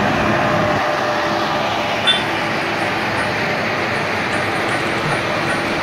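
Road traffic: a heavy truck's engine running as it drives past, over steady road noise, with a short clink about two seconds in.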